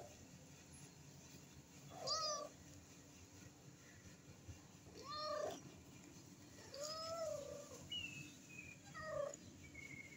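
A cat meowing four times, a few seconds apart, the third meow the longest. A few faint high chirps come in near the end.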